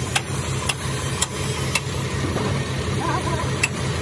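Heavy diesel truck engine idling steadily with a low pulsing throb, with a sharp click about twice a second.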